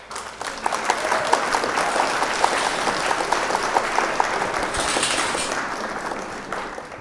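Crowd applauding, a dense patter of many hands clapping that fades out near the end.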